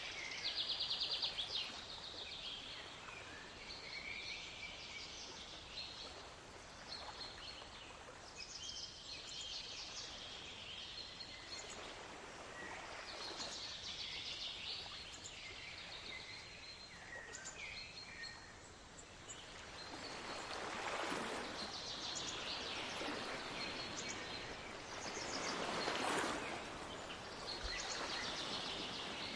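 Small birds chirping and trilling over ocean waves washing in. A rapid trill comes about a second in, and the waves swell louder in the second half.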